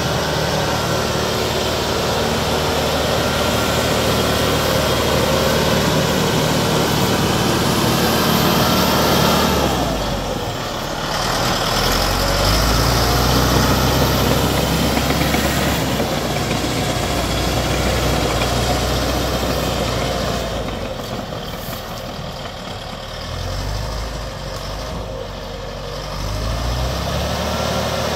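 Caterpillar D5H crawler dozer's diesel engine running steadily as the dozer pushes dirt with its blade. The engine note dips briefly about a third of the way in, eases off for several seconds later on, then picks back up near the end.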